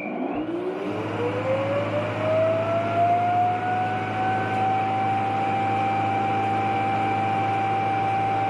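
Shark RV1001EA self-emptying base station's suction motor spinning up and pulling the dirt out of the docked robot vacuum's bin. A whine rises steeply in pitch over the first few seconds, then holds steady over a loud rush of air.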